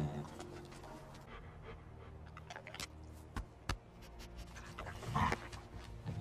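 Dog-like alien creature panting, with a few sharp clicks in the middle and a louder breathy huff about five seconds in.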